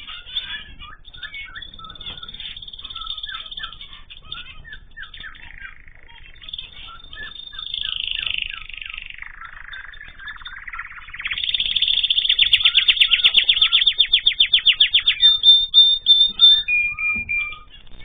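Small aviary birds chirping in short calls. Past the middle, a domestic canary sings a loud, fast trill of rapidly repeated notes, ending with a short held note.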